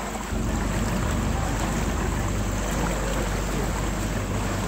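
Open river tour boat under way: the steady low hum of its motor with water and wind noise, getting a little louder about a third of a second in.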